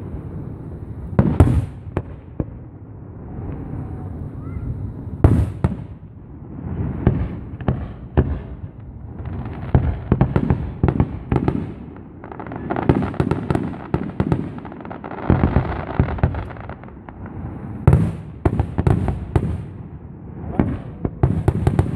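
Aerial fireworks bursting in a steady barrage, with loud booms about 1.5, 5 and 18 seconds in and rapid crackling between, their rumble echoing across the water.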